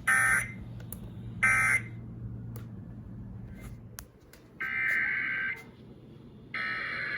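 Emergency Alert System (SAME) digital data bursts on a weather radio broadcast. Two short, loud bursts about a second and a half apart near the start close the end-of-message code after the flash flood warning's voice message. About four and a half seconds in come two longer, quieter bursts of the same data tones, two seconds apart.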